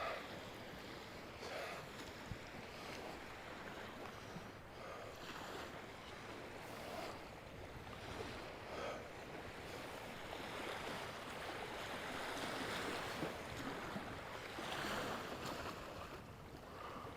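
Wind and small waves washing on a lake beach: a faint, steady rush that swells and eases every few seconds.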